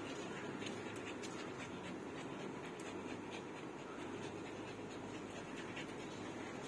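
An American bully and a small Pomeranian tussling on their chains: quiet dog sounds over a steady low rustle, with a few faint clicks scattered through.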